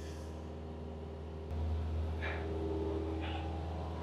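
Cessna 172 Skyhawk's piston engine and propeller droning steadily, heard inside the small cabin; the drone gets louder about a second and a half in, during a steep dive-and-pull-up manoeuvre.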